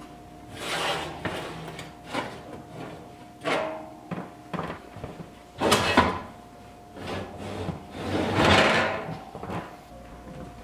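Metal loaf pan and lidded cast-iron Dutch oven scraping and clanking on the wire oven rack as they are slid out of the hot oven and lifted away: a run of separate scrapes and knocks, the sharpest about six seconds in.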